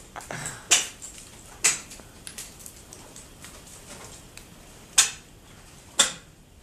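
Ice-climbing tools striking frozen waterfall ice in sharp, short blows, each with a brief ring. There are two pairs of louder strikes, about a second apart, with fainter taps between them.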